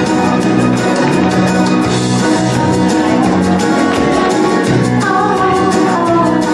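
Live country and western music: a woman singing into a microphone over an amplified acoustic guitar, with a steady beat.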